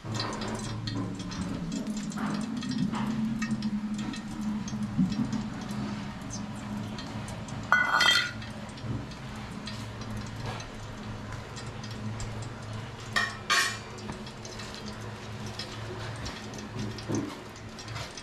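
A metal cooking pan and utensil clinking: one ringing clink about eight seconds in and two more close together a little after thirteen seconds. Under them runs a steady low hum while ghee heats in the aluminium pan.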